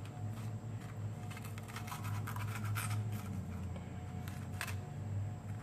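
Light scraping and scattered small clicks of kitchen food-prep handling, over a steady low hum.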